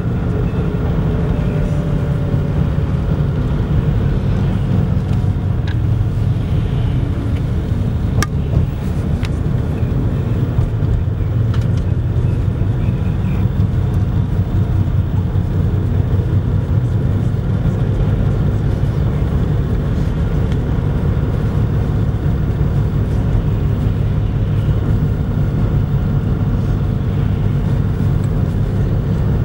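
Car interior driving noise: engine and tyres on the road giving a steady low rumble inside the cabin, with a single faint click about eight seconds in.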